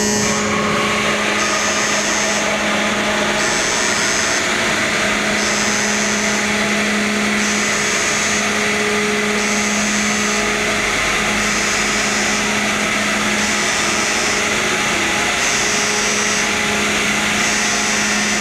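Forward aircraft elevator of the helicopter destroyer JS Hyūga running as it lifts from the hangar to the flight deck: a loud, steady machinery hum. Over it, a high tone sounds for about a second every two seconds.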